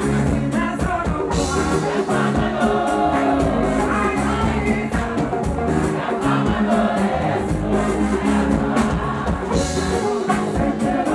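Live gospel music: a woman singing lead with backing voices over a band with drums, bass and keyboard keeping a steady beat.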